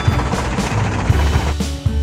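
Background music with drums and a steady bass. About one and a half seconds in, the dense mix thins and clear held notes come in.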